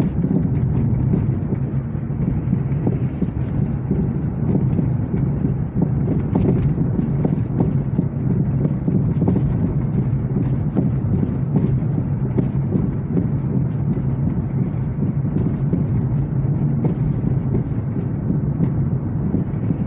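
Car being driven, its suspension knocking with many short, irregular knocks over a steady low rumble of the running vehicle. The knocking is the sign of a suspension fault.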